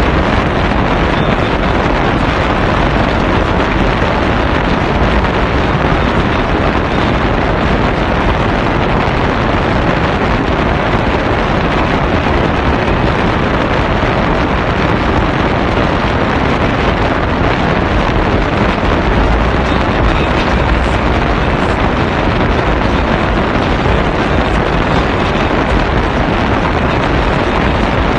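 Loud, steady wind rush buffeting a phone microphone through an open window of a moving car, drowning out everything else.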